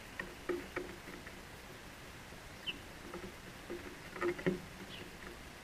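House sparrows landing and moving about on a wooden fence post right beside the microphone: sharp taps and scratches of feet and beaks on the wood, a few early on and a quick, louder cluster about four seconds in. A couple of faint short chirps.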